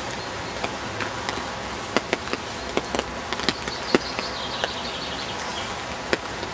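Steady rain falling, with irregular sharp taps of raindrops landing close to the microphone.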